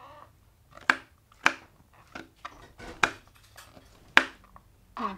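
Knife slicing garlic cloves on a cutting board: a series of sharp, irregular knocks as the blade strikes the board, four of them louder than the rest.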